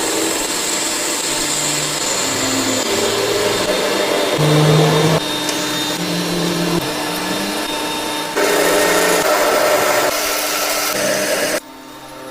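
Steady whirring of a power tool or workshop machine, broken into sections that change abruptly, with a short drop in level near the end.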